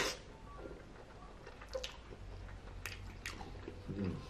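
A man slurping in a mouthful of spaghetti, then chewing with scattered wet clicks and smacks, and a brief hum about four seconds in.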